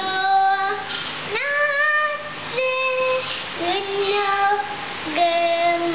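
A young child singing alone in a high voice, holding about five long notes of roughly a second each, with short breaks, the pitch stepping up and down between them.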